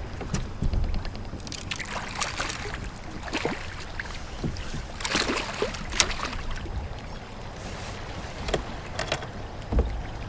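Water splashing and sloshing around a fishing kayak, with scattered small knocks and clicks, while a small striped bass is played on the line.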